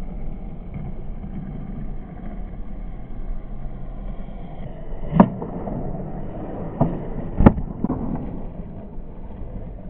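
Skateboard wheels rolling on rough concrete with a steady rumble, then a sharp pop about halfway through and two hard cracks of the board hitting down over the next two seconds.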